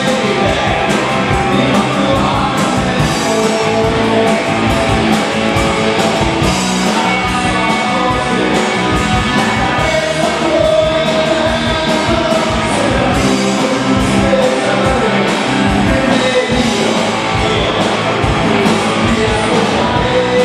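Rock music with a singing voice and a steady beat.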